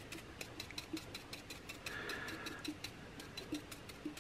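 Stippling brush dabbing acrylic paint onto a glass jar: a quick, faint run of light taps, about six a second, with a few duller knocks mixed in.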